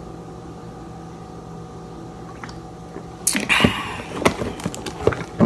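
Steady low room hum. About three seconds in comes a short noisy sip from a cup of soda, then a few sharp clicks and knocks as the cup is handled.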